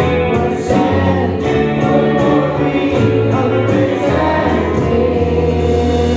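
Live band playing a song, with electric guitars, bass guitar, acoustic guitar and a drum kit keeping a steady beat, and voices singing over it.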